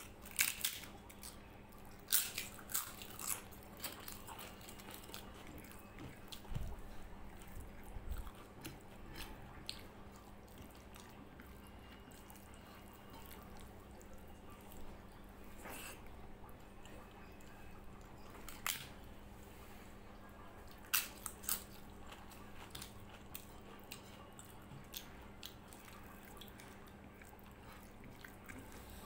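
Close-up eating sounds: chewing and wet mixing of rice and dal by hand on a plate, with scattered sharp crunches and mouth smacks, several of them in the first few seconds. A faint steady hum lies underneath.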